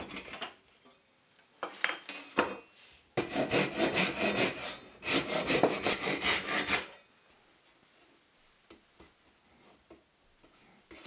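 Japanese pull saw flush-cutting a protruding spruce wedge on a stool top. It makes rapid, rhythmic rasping strokes that stop shortly after the start, then a few light clicks, then a second run of strokes lasting about three and a half seconds that stops suddenly. Faint taps follow.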